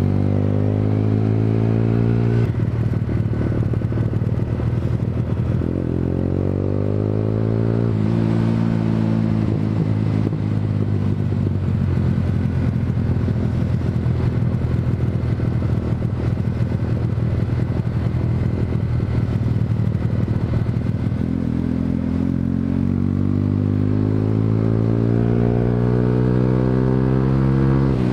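Honda CBR125R's single-cylinder engine on the move, pulling up through the gears. Its pitch climbs, drops at a gear change a couple of seconds in and climbs again, then holds steady at cruising speed, before easing off and rising again near the end. Wind rush on the microphone underneath.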